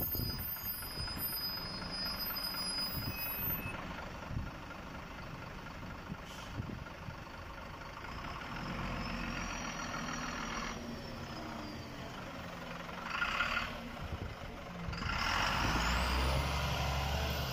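Irisbus Agora S city bus running as it pulls away and drives off over cobbles, with a brief hiss about thirteen seconds in. The engine grows louder near the end as the bus accelerates away.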